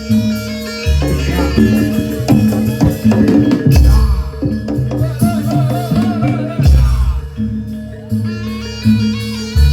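Javanese barongan accompaniment music: drums and pitched metal percussion playing a busy rhythmic piece, with deep low strokes roughly every three seconds.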